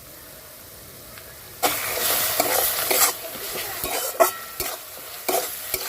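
Onion, garlic and ginger paste with turmeric frying in hot mustard oil in a kadai, sizzling and stirred with a spatula that scrapes and knocks against the pan several times. The sizzling starts suddenly about a second and a half in.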